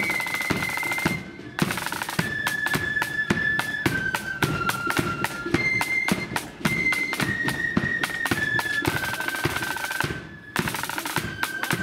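Blood-and-thunder marching flute band playing: flutes carry the melody over rapid snare drumming and bass drum beats, with three short breaks between phrases.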